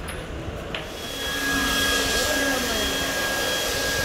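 Motorized sanitizer sprayer starting about a second in: a steady hissing spray from the hose wand over a constant motor whine.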